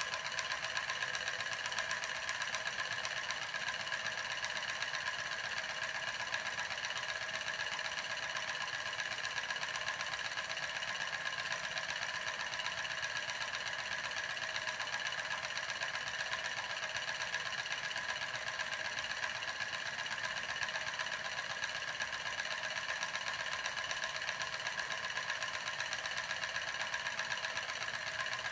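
Homemade steam turbine, a CD wheel driven by a steam jet from a candle-heated soda-can boiler, spinning with a steady, rapid mechanical whir and rattle.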